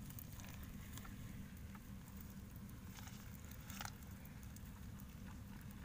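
Faint scattered patter of small splashes and clicks from shallow water and mud, over a steady low rumble.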